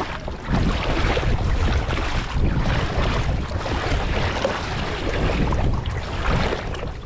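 Wind rumbling on the microphone, mixed with water lapping and splashing around a small boat as it moves across flooded water.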